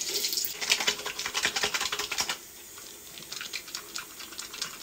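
Wet, soapy hands rubbing and patting over a face to wash off face paint, making a fast run of small wet clicks. It is busiest for the first two seconds, then lighter and sparser.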